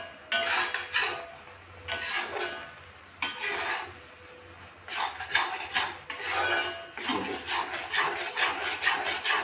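Metal spatula scraping and stirring thick carrot halwa in a kadhai. A few spaced scrapes come first, then quick, repeated strokes from about five seconds in.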